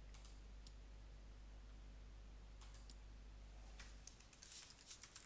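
Faint clicks of a computer mouse and keyboard: a few single clicks, then a quicker run of them near the end.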